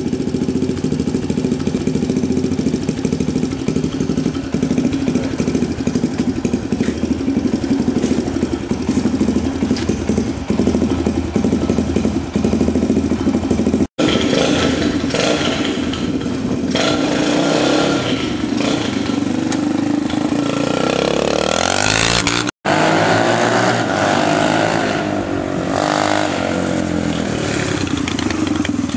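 A pocket quad's 125 cc Monkey-type four-stroke single-cylinder engine runs steadily at idle. After a cut about halfway, it revs up and down as the quad is ridden, with one long rising rev near the two-thirds mark. The sound breaks off for an instant twice at edits.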